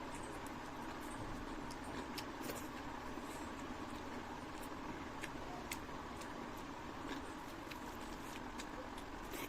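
Eating sounds: scattered wet clicks and smacks of chewing, a few every second, over a steady background hum.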